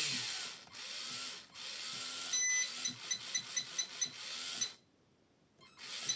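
Electronic beeping from RC car electronics: rapid, high-pitched beeps at about four a second, following a steady hiss. The beeps stop for about a second and start again near the end.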